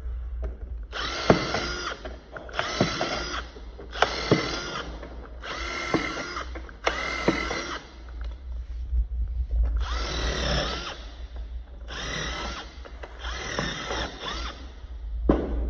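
Cordless drill/driver motor running in about eight short bursts, each under a second, each spinning up with a rising whine and then holding. A steady low hum runs underneath.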